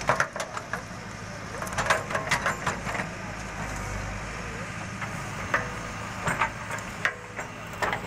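Backhoe loader's diesel engine running steadily while the backhoe bucket digs into soil, with clusters of sharp cracking and crunching as clods and roots break and the loaded bucket is swung and dumped.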